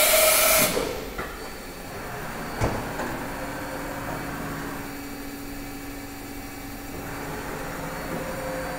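Mazak VTC-300C vertical machining center running its demo program: a loud hiss for under a second at the start, a sharp clunk a little under three seconds in, then a steady hum with one held tone.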